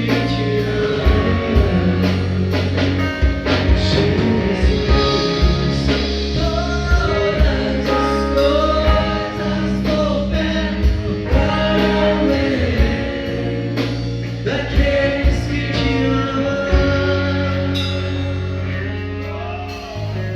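A church band playing and singing a gospel song: singing over bass, guitar and a drum kit keeping a steady beat.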